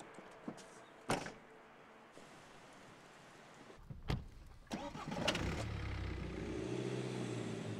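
A car tailgate shuts with a single solid thud about a second in. Near the middle there are a few clicks, then the BMW 520d Touring's four-cylinder turbo diesel starts and settles into a steady idle.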